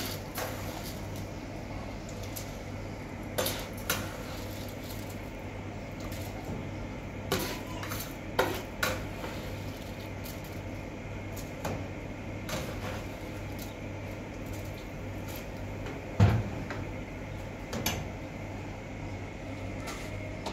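Scattered clinks and knocks of cookware being handled at a gas stove: metal pots and a plastic bowl of rice. There are about ten of them, the loudest about 16 s in, over a steady low hum.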